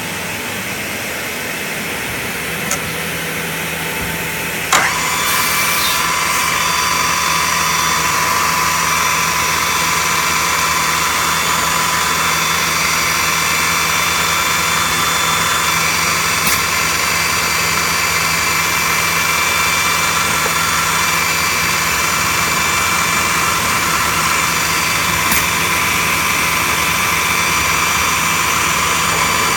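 CNC router running with a steady mechanical whine. About five seconds in a sharp click is followed by a step up in level, and several steady high tones join and hold, as another motor on the machine switches on.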